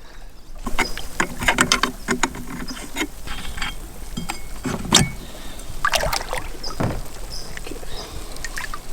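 Irregular metallic clicks, knocks and clinks of tools and parts while the propeller is swapped on a Tohatsu 9.8 hp two-stroke outboard, with a few short ringing notes from the metal.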